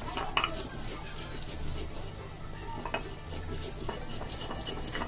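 Hands scraping and gathering wet ground spice paste on a flat stone grinding slab (sil), with scattered small clicks and scrapes.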